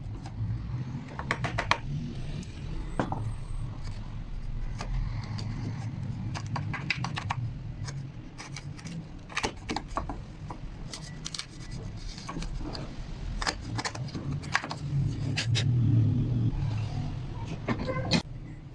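Irregular light taps and clicks from hand work on wood pieces, over a steady low rumble.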